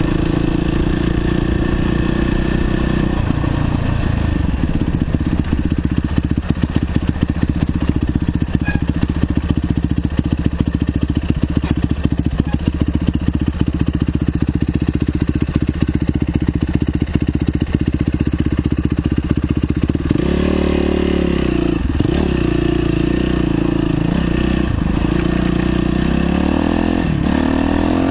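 The 2009 Yamaha YZ450F's single-cylinder four-stroke engine runs at a steady, low speed with a rapid clatter. From about twenty seconds in, the engine revs up and down with throttle changes.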